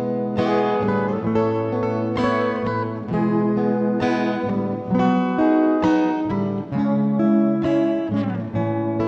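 Acoustic guitar playing alone: an instrumental passage of strummed chords, each stroke with a clear attack, about two a second.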